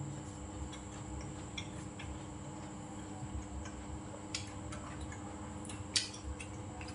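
A man chewing food close to the microphone: scattered soft wet mouth clicks and smacks, with one sharper click about six seconds in, over a steady hum.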